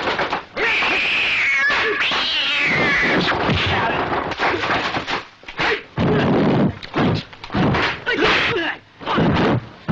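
Cats yowling and caterwauling while they fight. A long, wavering wail runs for about three seconds near the start, followed by a string of shorter yowls with brief pauses between them.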